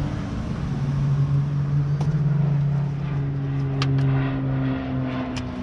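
A motor engine running steadily with a low, slightly wavering hum, with a few light clicks of brake parts being handled.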